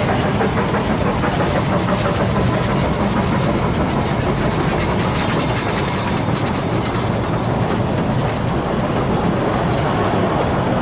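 Ffestiniog Railway narrow-gauge passenger carriages rolling past close by: a steady rumble and clatter of wheels on the rails.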